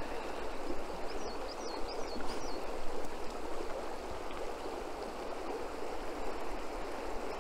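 Steady rush of flowing water, with a bird calling a quick run of four or five short high notes about a second in.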